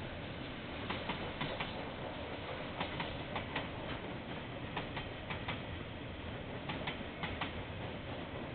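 Train wheels clicking over rail joints as a train rolls slowly past: a pair of clicks from each bogie, in groups of four about every two seconds, over a steady rumble.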